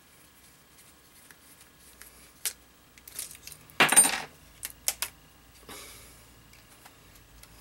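Small screwdriver prying apart a slide cell phone's plastic and metal parts: scattered small clicks and taps, with a louder scraping crackle about four seconds in, followed by a few sharp clicks as the small LCD screen is worked loose.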